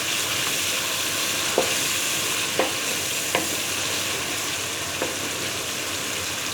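Tomato-onion masala sizzling in oil in a pan with a steady hiss, the masala fried through and ready. A few light knocks of the stirring spoon against the pan come at irregular moments.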